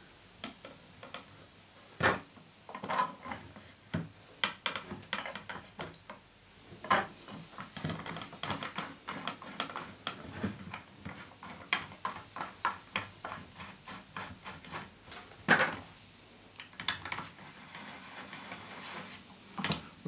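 Irregular small clicks and light knocks of metal and wood as a barrel bolt is worked into the wooden wheel support of a spinning wheel frame, with a few louder knocks.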